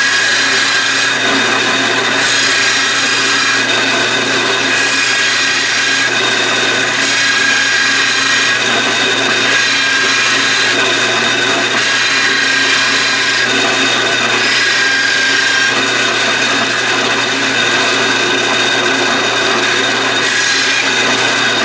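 Power drill driving a hole saw steadily through wood, with the saw fully buried and no breakout for the sawdust to escape. The cut goes slowly and the packed sawdust heats it enough to scorch the wood.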